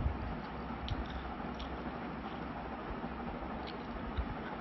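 Eating sounds: a mouthful of rice and chicken curry being chewed while fingers mix rice on a plate, with a few faint clicks and soft low thumps over a steady hiss.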